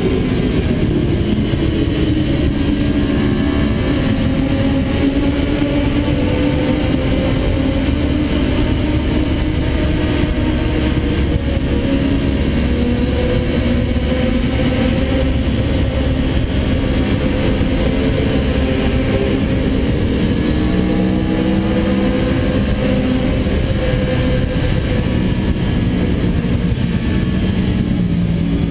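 Yamaha YZF-R1 sport bike's inline-four engine running hard at high road speed, its pitch wavering up and down over heavy wind rush.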